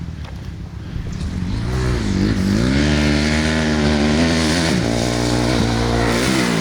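Dirt bike engine revving hard as the rider accelerates along the track, its pitch climbing, dropping and climbing again through the gear changes, over a steady low engine hum.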